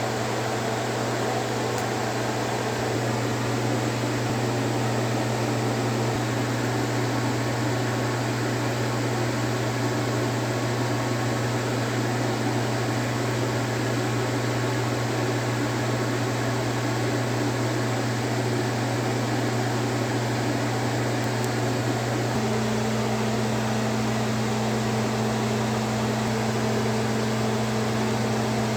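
A household electrical appliance running with a steady mains hum and an even whirring noise. It switches on abruptly just before, and the hum's tone shifts slightly about three-quarters of the way through.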